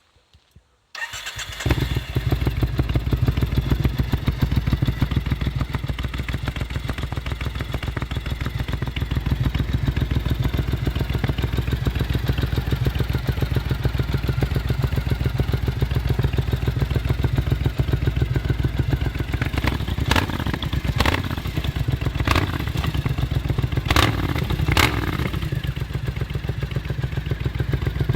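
Triumph Scrambler 900 parallel-twin with an aftermarket Arrow exhaust starting about a second in after a brief crank, then idling steadily and loud. A few short sharp clicks sound over the idle about two-thirds of the way through.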